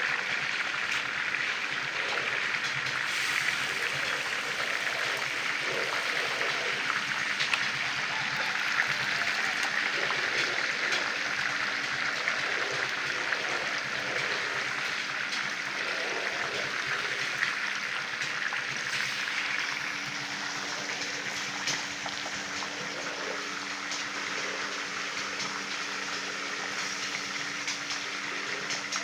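Tofu deep-frying in large woks of hot oil: a dense, steady sizzle with fine crackling that eases a little after about twenty seconds. A faint low hum runs underneath.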